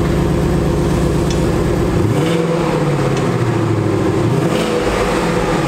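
Ford Mustang GT's V8 running through its stock exhaust: a steady, muted note, with the revs rising about two seconds in and settling back near the end.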